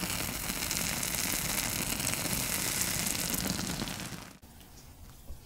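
Egg, tomato and cheese mixture sizzling and crackling in oil in a frying pan. The sizzle cuts off suddenly about four seconds in, leaving only faint small ticks.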